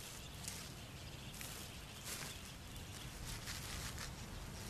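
Faint outdoor bush ambience: a low rumble of background noise with scattered soft rustles and scratches.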